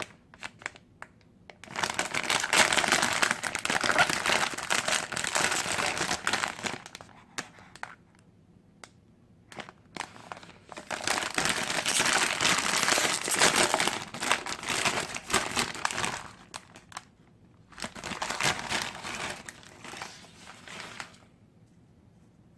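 Plastic instant-ramen packet crinkling as it is handled, in three long spells with short pauses between them.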